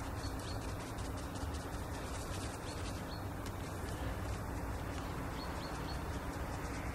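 Steady low background noise with a faint hum, small scattered ticks and a few brief high chirps.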